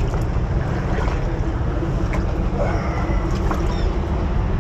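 Water sloshing and splashing around a sea kayak's hull as it glides under a low concrete bridge, over a steady low rumble. A few short, high bird calls come through about three and a half seconds in.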